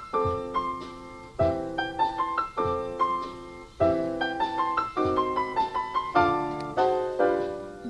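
Solo piano introduction: chords struck about every second and a bit, each followed by a short rising run of notes.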